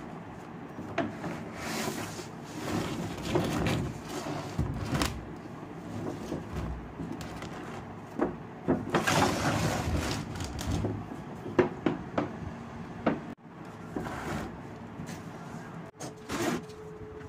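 Cardboard packaging being handled: a corrugated shipping carton and a toy RC car's plastic-windowed box rustling, scraping and knocking irregularly as the box is pulled out and turned about.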